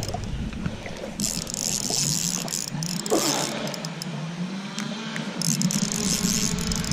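Spinning reel being cranked to bring in a hooked coho salmon, its gears making a whir that wavers up and down in pitch.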